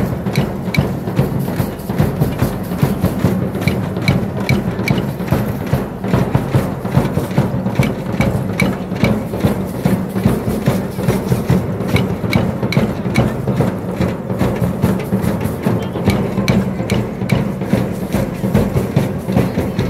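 Festival drumming with a fast, steady beat and sharp knocking strokes over the hubbub of a dense crowd.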